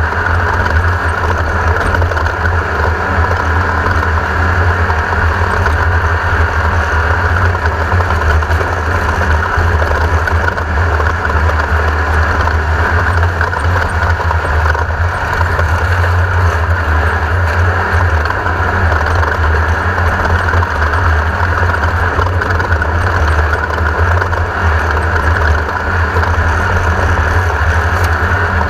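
Class 1600 desert race buggy's 1600 cc air-cooled Volkswagen engine running loud and steady, with a strong deep rumble.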